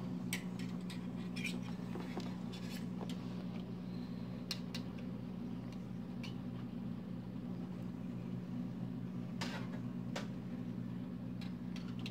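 A steady low electrical hum, with scattered light clicks and ticks over it.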